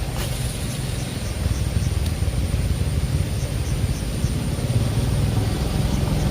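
Low, fluttering rumble of wind buffeting the microphone, with faint high ticks in short runs and one sharp click just after the start.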